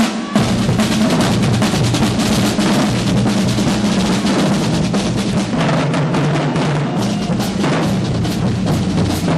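Music with a busy drum beat of bass drum and snare over a steady bass line, starting suddenly.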